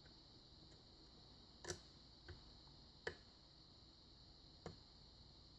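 Four faint, irregularly spaced clicks from a lock pick working the pin stack of a Sargent six-pin pin-tumbler lock under light tension. These are the clicks of pin 1 setting.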